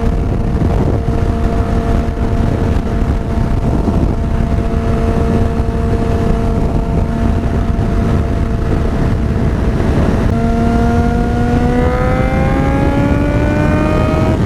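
Yamaha FZ6R's 600 cc inline-four engine through a Hindle aftermarket exhaust, first held at a steady pitch, then climbing steadily in pitch from about ten seconds in as the bike accelerates. Wind rumble on the microphone throughout.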